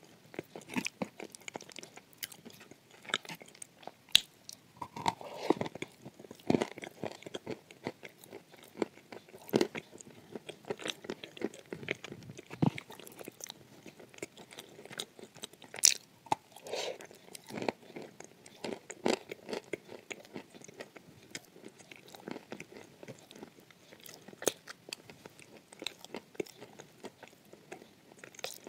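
A person biting and chewing dry lumps of edible clay close to the microphone: irregular sharp crunches and crackles, with louder bites about four and sixteen seconds in.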